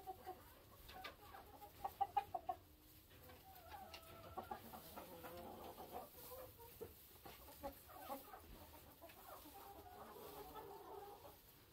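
Flock of chickens clucking steadily, with a quick run of about five louder clucks about two seconds in.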